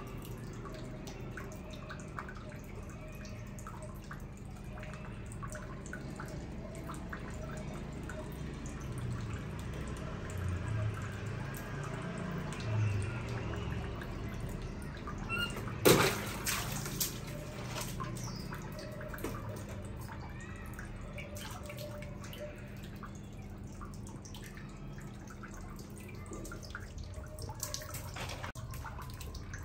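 Water dripping and lightly splashing, with scattered small clicks and one sharp knock about sixteen seconds in.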